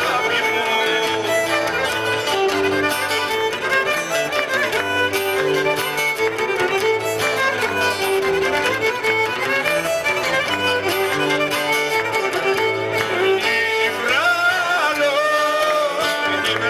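Live Greek folk dance music: a violin carries a wavering, sliding melody over strummed guitar and a steady bass line.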